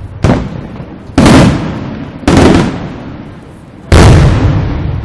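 Aerial firework shells bursting: four sharp booms, each trailing off in a rumbling echo, the last after a longer pause.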